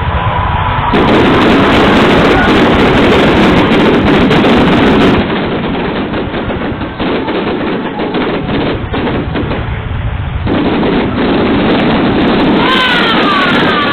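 Fireworks going off in a dense, rapid volley of crackling bangs, loudest over the first few seconds and again near the end, with a few short whistles near the end.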